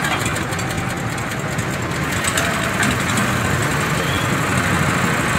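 Honda GX160 single-cylinder engine of a WB30XN water pump running steadily at idle.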